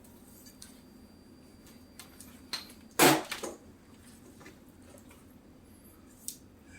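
Hard objects and tools being handled: a few light clicks and one loud clank about three seconds in.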